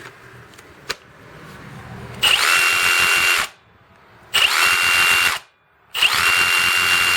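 Kobalt 24-volt brushless jigsaw run three times without cutting, powered by an extended-run 4 Ah battery. Each run lasts about a second, with the motor spinning up quickly to a steady high whine and the blade stroking. A single sharp click comes about a second in.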